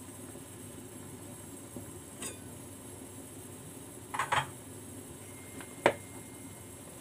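Stainless steel pot lid being lifted off and handled: a faint click about two seconds in, a short double metal clatter past the middle, and a sharp metal knock near the end, the loudest sound. Water boils steadily underneath.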